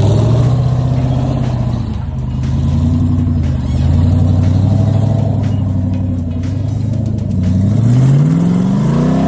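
Rock-crawling Jeep engine working under load as it climbs, its pitch dipping and swelling, then rising steadily in a long rev over the last couple of seconds.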